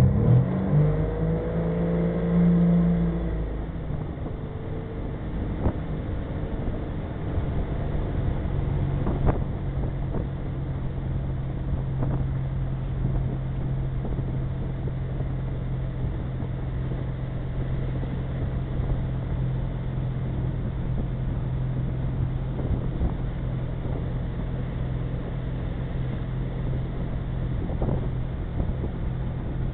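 Ski boat engine opening up hard to pull a water-skier up off the dock, its pitch climbing over the first few seconds. It then runs steadily at towing speed under a wash of wind and water noise.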